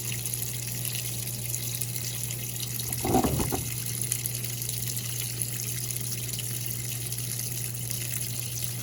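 Tap water running steadily into the tub of a Brastemp Baby Mondial BLK20 washing machine as it fills to wet a load of clothes, the flow a little weak because another outlet is drawing on the supply. A steady low hum lies underneath, and a brief thump comes about three seconds in.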